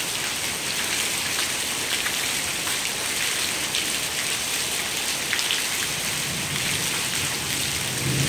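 Heavy rain falling steadily on wet ground and standing floodwater, an even hiss with scattered drops ticking close by.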